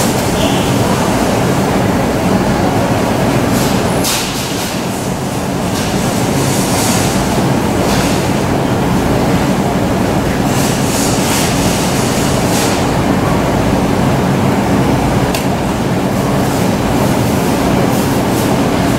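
Steady hum and hiss of supermarket background machinery, with a few short rustles and clicks scattered through.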